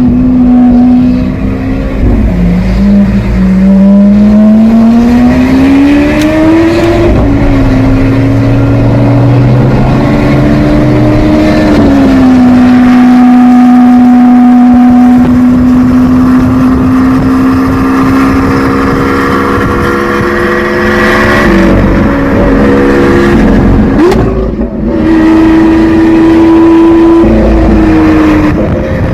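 Lamborghini Aventador SV's 6.5-litre V12 with a Capristo exhaust, driven at moderate revs. The engine note holds steady for long stretches, climbs over a few seconds of acceleration, and drops at gear changes, with a quick dip and jump to a higher note about three quarters of the way through.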